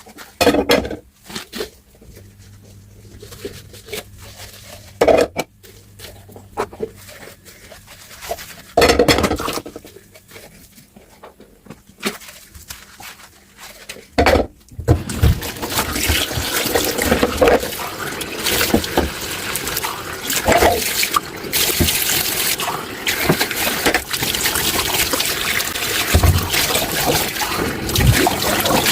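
Dishes and cutlery clinking and knocking in a kitchen sink. About halfway through the tap runs and water pours steadily into the sink, with the occasional knock of dishes under it.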